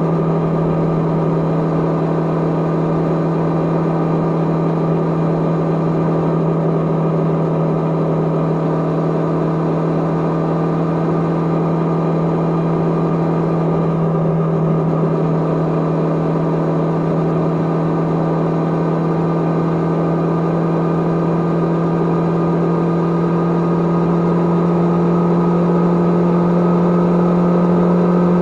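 Kawasaki GPz550's air-cooled inline-four engine running steadily under way, with no wind noise over it. Its pitch and loudness rise slightly near the end as engine speed picks up.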